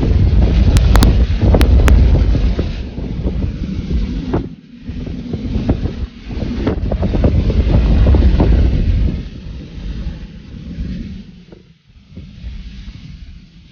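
Strong wind buffeting the microphone as a loud, deep rumble that rises and falls in gusts, with a few sharp clicks early on. It drops out abruptly twice.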